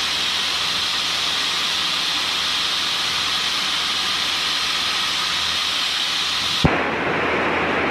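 Steady static hiss on the aircraft's com radio audio, cut off by a sharp click about six and a half seconds in, after which a softer hiss carries on.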